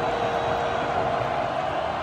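Stadium crowd noise: a steady din of many voices in the stands.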